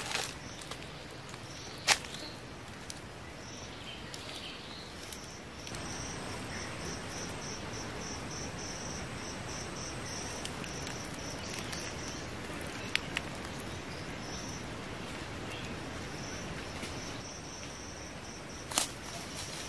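Forest ambience: an insect chirping in a long series of short, evenly spaced high pulses over a steady hiss, with a few sharp clicks as sticks are handled.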